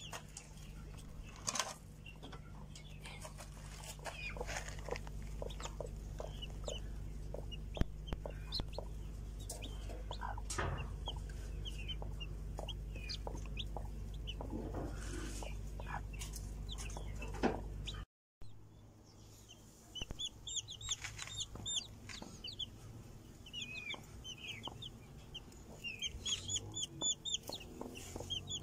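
Newly hatched chicks peeping in many short, high chirps, which come thick and fast from about two-thirds of the way in, with a mother hen clucking among them. A steady low hum runs under the first part and stops at a break.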